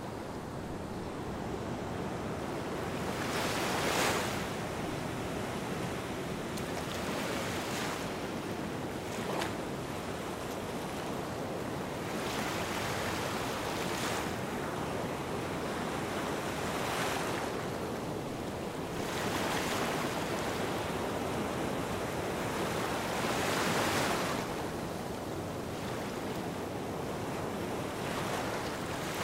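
Small waves washing onto a sandy beach: a steady shoreline hiss that swells into a louder wash every three to four seconds, loudest about four seconds in and near the end.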